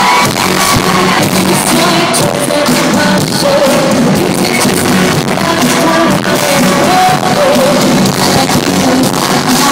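Live pop music played loud through an arena sound system, with a voice singing over it.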